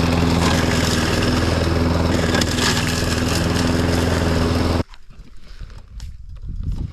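Riding lawn mower engine running steadily, cutting off suddenly almost five seconds in. After it come quieter, irregular knocks and rustles.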